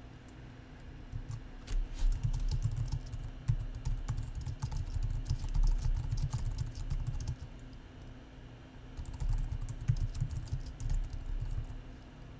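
Typing on a computer keyboard: runs of quick key clicks starting a couple of seconds in, a pause of about a second and a half, then a second run of typing.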